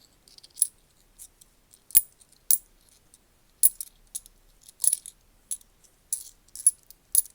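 10p coins clinking as they are flipped over one by one and set down: about a dozen sharp metallic clicks at an uneven pace, the loudest two about two seconds in.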